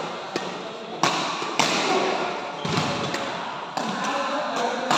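Badminton rally: rackets striking the shuttlecock with a series of sharp hits, roughly one a second.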